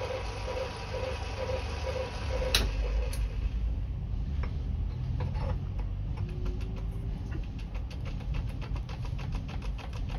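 A steady low machine hum, with two sharp clicks about two and a half and three seconds in. From about six seconds on comes a quick run of light metallic clicks as a cast flywheel is pushed and twisted by hand onto a tight-fitting mandrel in a lathe collet.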